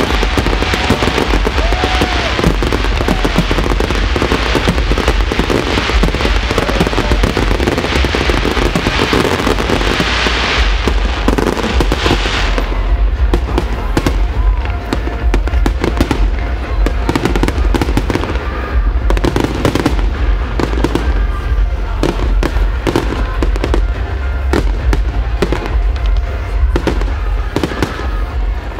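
Aerial fireworks going off: a dense barrage of crackling and bangs for about the first twelve seconds, then separate sharp bangs, several a second, over a steady low rumble.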